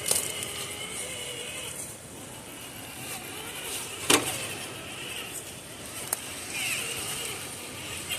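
Traxxas TRX-4 RC rock crawler's electric motor and geared drivetrain whining in short spurts as it crawls over boulders, with a sharp knock about four seconds in and lighter clicks from the tires and chassis on rock.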